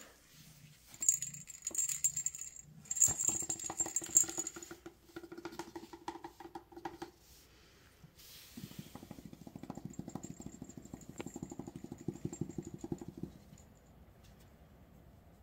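Light jingling and clicking as a kitten plays with a string toy on a rug over the first few seconds, followed by a low, rapid, even pulsing sound for about five seconds in the second half.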